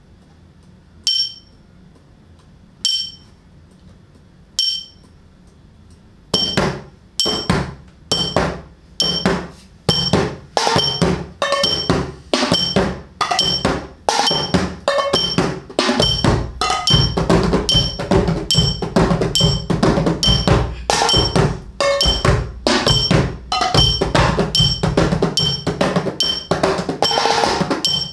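Kitchen-utensil percussion: a single ringing clink about every two seconds, then from about six seconds in a steady rhythm of taps and knocks on pots, metal tins and a large plastic water bottle builds up, with deeper thumps joining around sixteen seconds in.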